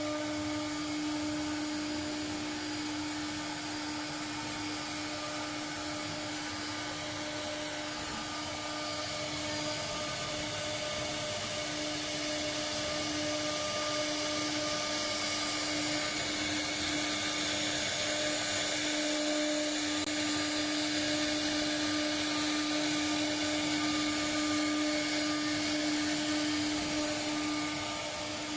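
CNC router spindle running at a constant speed with a steady high whine, over the hiss of the bit cutting into wood as it carves a door panel.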